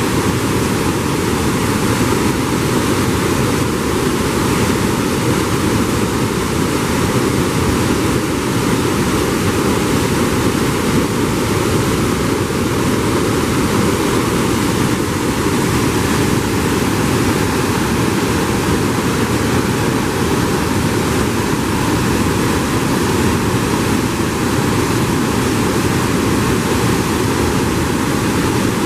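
River waterfall and rapids: white water pouring through a narrow rock gap and over boulders, a loud, steady rushing that never lets up.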